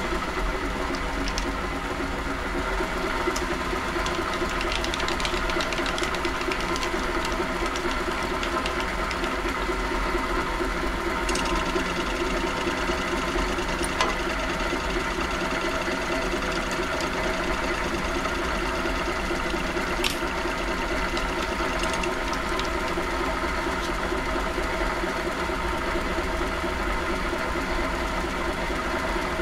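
WM210V benchtop metal lathe running at a steady speed, its motor and gearing giving a constant whine of several tones, while it turns a Delrin blank; a few faint clicks sound over it.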